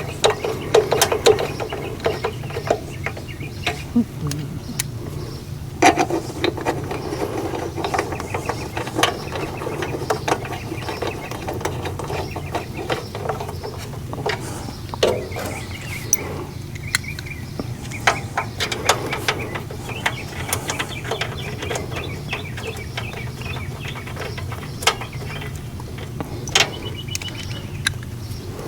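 Scattered clicks and clinks of hand tools and metal parts as bolts and screws are fitted into a Generac generator's mixer housing, over a steady low hum.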